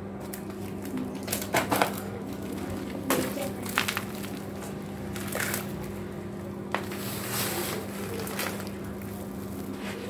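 Chunk of dry white cement crumbled by gloved hands over a basin of water: gritty crunching and crumbling, with grit falling into the water and then being worked in it. The loudest crunches come in the first four seconds, over a steady low hum.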